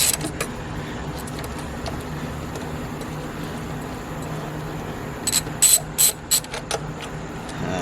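Hand ratchet clicking in a few quick bursts a little past halfway through, backing out a screw that holds the dash air box, over a steady low hum.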